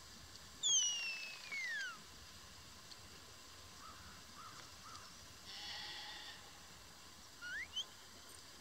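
Sheepdog handler's whistle commands: one loud whistle sliding steeply down in pitch about a second in, and a short rising whistle near the end. A brief harsh call sounds once midway.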